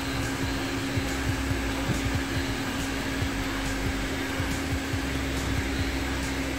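Corded electric heat gun running steadily, its fan giving a constant whirr with a steady hum, as it dries fresh paint on the panel.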